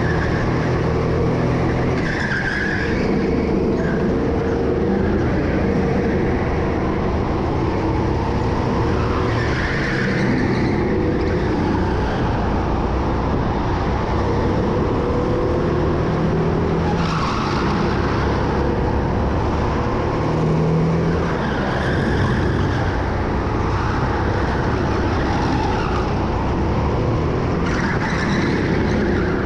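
Go-kart engine running steadily at race pace, with tyres squealing briefly at several points through corners.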